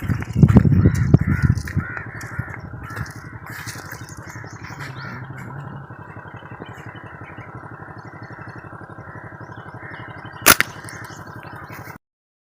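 Birds giving harsh, cawing calls in a quick series during the first few seconds, over a loud low rumble. A single sharp snap comes about ten seconds in.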